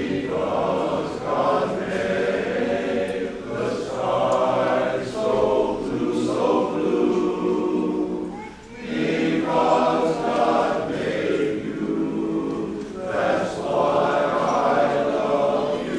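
Men's chorus singing in harmony, in long held phrases with a short breath gap a little past the middle.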